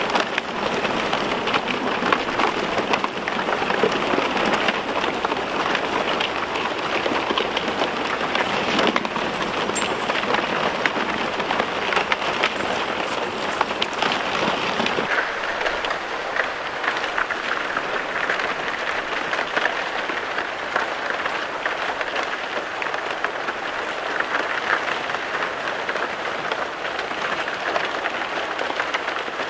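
Thin plates of fresh lake ice breaking and sliding over one another as a floe is pushed ashore and stacks up: a loud, dense, continuous crackling and tinkling of countless small impacts. About halfway through it becomes lighter, with less low rumble.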